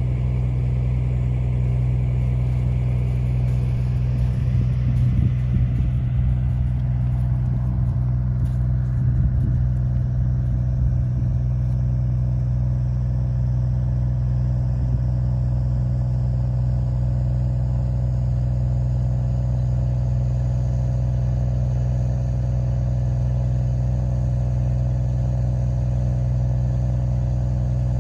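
A vehicle engine idling steadily with an even, low hum. A few brief low rumbles come in the first half.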